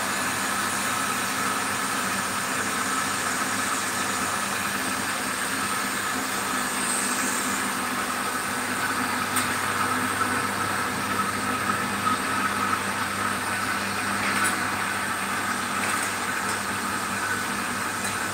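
Commercial RO water plant's pump running with a steady hum, with a few faint clicks over it.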